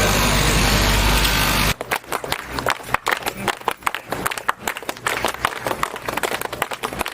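A steady engine-like rumble with a low hum stops abruptly under two seconds in. A crowd applauding follows, a dense run of irregular hand claps.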